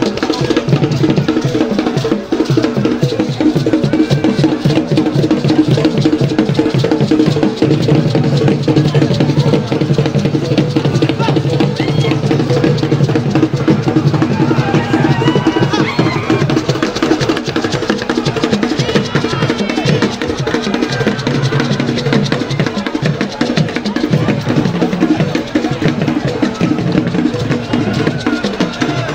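Music with fast, dense drumming and a steady beat.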